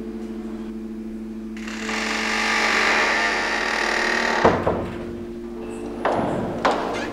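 Suspense film score: a steady low drone with a hissing swell that builds and cuts off in a heavy thud about four and a half seconds in, then two more sharp knocks near the end.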